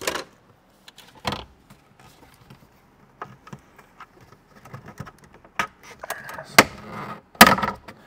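Irregular clicks, taps and light rattles of hands and a small tool working on plastic dashboard trim and its screws, with a few sharper clicks, the loudest near the end.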